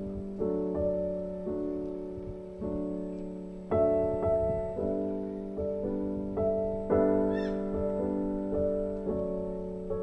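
Slow background piano music: single notes and chords struck about once or twice a second, each left to ring and fade.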